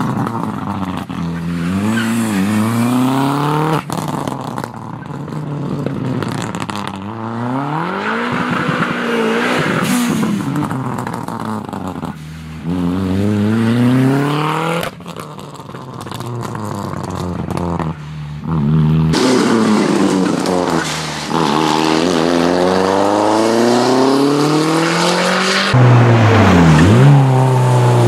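Audi A4 rally car's engine under hard acceleration, its pitch climbing and then dropping sharply at each gear change, again and again. The sound jumps abruptly several times. Near the end the pitch falls low and climbs again as the car pulls away.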